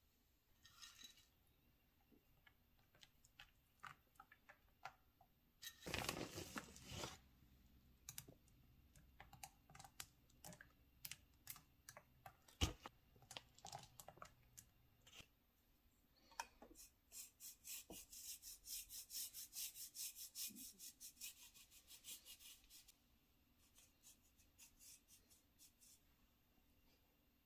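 Faint clicks and a brief rustle as chopped peanuts and chocolate chips are dropped and scattered onto a cream pie filling. Later, a chocolate bar is scraped into shavings over the pie: a quick run of raspy strokes, about four a second, lasting several seconds.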